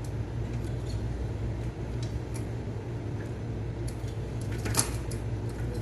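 Scattered light clicks and knocks of a bicycle's rear wheel and frame being handled as the tight wheel is worked out of the dropouts, the sharpest knock about five seconds in, over a steady low hum.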